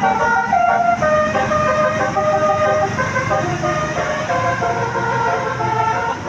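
A tour bus's 'basuri' telolet multi-tone horn playing a tune of short stepped notes, with a low rumble underneath.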